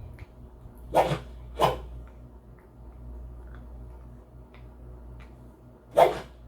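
Three dull thuds, two close together about a second in and one near the end, over a steady low hum with faint regular ticking.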